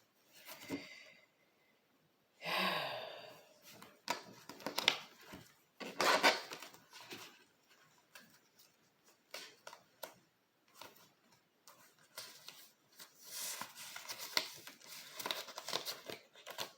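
Tarot cards being shuffled and handled: irregular papery rustles and snaps, with a few longer shuffling bursts.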